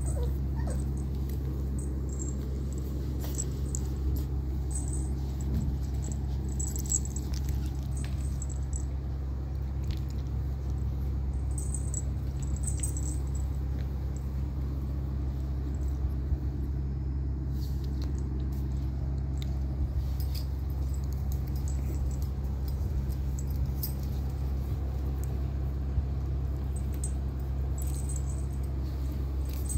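Steady low background hum with faint, scattered clicks and rustles from month-old puppies nursing and wrestling on a mat.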